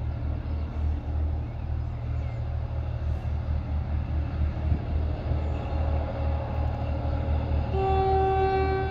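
Class 17 'Clayton' diesel locomotive approaching under power, its engine running with a low pulsing beat that grows louder. Near the end the locomotive's horn sounds one held note.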